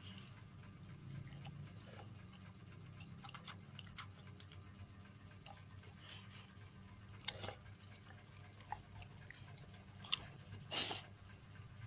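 A dog chewing and biting its food: scattered faint crunches and clicks, the loudest about seven and eleven seconds in, over a low steady hum.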